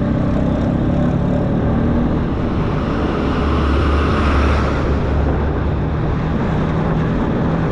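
LML NV Vespa scooter's two-stroke engine running at low riding speed, heard with road and wind noise. A deeper low rumble swells for about a second, around four to five seconds in.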